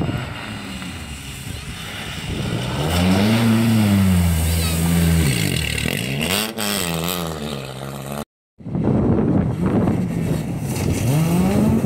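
Rally car engines revving and accelerating hard through a shallow river ford, the engine pitch rising and falling twice as the car drives through, with water spraying from the tyres. The sound cuts out for a moment about eight seconds in, then another rally car's engine revs up and falls again near the end.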